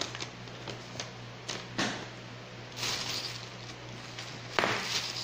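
Handling noises at a table: scattered light clicks and knocks, a stretch of rustling about three seconds in, and a sharper knock followed by more rustling near the end, over a steady low hum.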